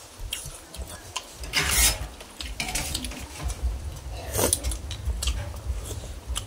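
Metal spoons scraping and clinking against a large metal bowl of bamboo-shoot curry as several people scoop it up, in short scattered strokes. The loudest scrapes come just before two seconds in and again around four and a half seconds.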